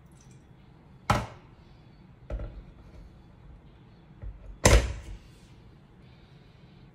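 Three sharp knocks off camera, about a second in, a weaker one a little past two seconds, and the loudest near five seconds in.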